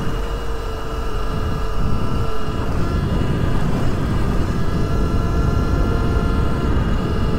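2023 Surron X electric dirt bike under way, its electric motor giving a steady whine that holds its pitch apart from a brief dip about two and a half seconds in. Under the whine is heavy wind and road rumble from riding over a rough gravel road.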